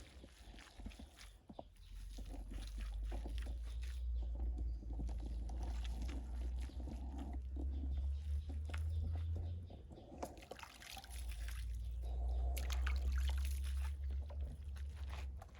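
Hands kneading wet soil and water into mud, with sloshing and squelching, under a low rumble that comes and goes.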